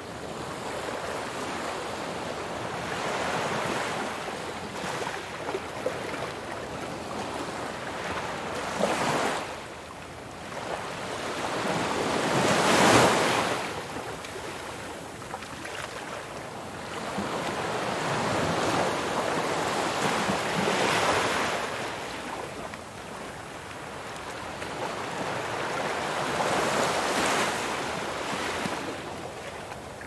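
Ocean surf: waves breaking and washing in, the rush swelling and fading every few seconds, loudest about thirteen seconds in.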